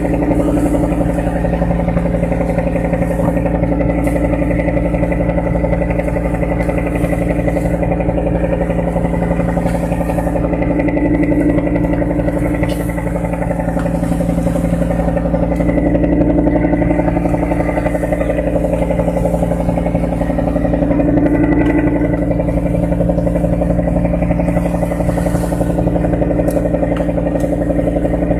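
A fishing boat's inboard engine running steadily at constant speed, with a few brief bursts of hiss over it.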